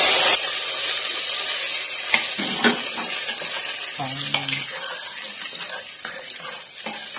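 Hot coconut-oil tempering of mustard seeds, dried red chillies and curry leaves poured into a pot of curry, hitting it with a sudden loud sizzle that goes on as a steady hiss and slowly dies down. A steel ladle stirs and clicks against the pot.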